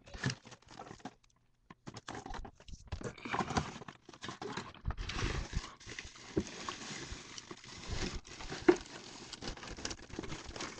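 Someone rummaging through belongings: irregular knocks, clatters and rustling as things are moved about, with one sharp, loud knock about two-thirds of the way through.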